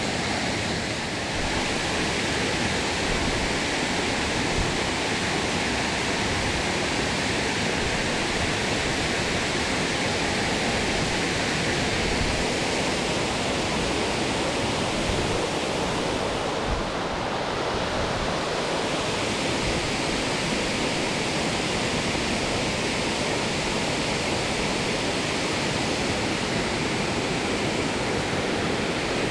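Steady rush of a mountain stream's flowing water, an even hiss with no break.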